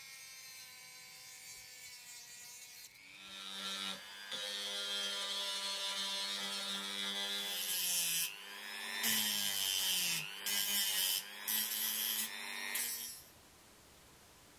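Handheld rotary tool running with a steady whine, faint at first and louder from about three seconds in, grinding with a gritty hiss in several bursts while its pitch dips as the bit bites; it stops near the end.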